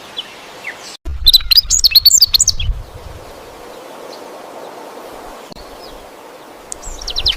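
Small birds chirping and twittering in quick, dense flurries: a loud burst about a second in, a softer stretch of background hiss, then chirping picks up again near the end.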